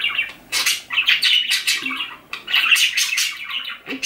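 Pet budgerigars chattering: rapid runs of high chirps and warbles broken by short pauses.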